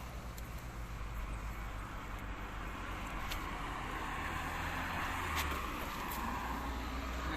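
Daewoo Matiz engine running steadily with a low hum, under a rushing noise that swells in the second half.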